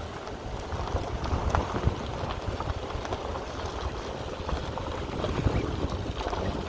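Steady low rumble of a vehicle travelling along the road, with wind buffeting the microphone and scattered light knocks and rattles.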